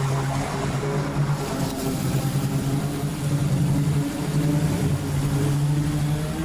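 Stand-on commercial mower's engine running steadily under load as it cuts through long, thick grass.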